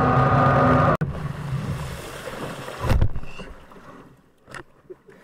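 Electric jet drive of a home-built jet kayak running with a steady whine over rushing water, cut off abruptly about a second in. The hull then coasts with water washing along it, a dull thump about three seconds in as the bow runs into the riverbank, and it falls quiet apart from small splashes.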